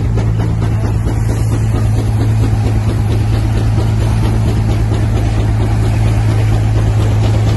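A Frick steam traction engine working under load, driving a threshing machine by belt as it threshes wheat. The machinery runs together in a loud, steady low drone that does not let up.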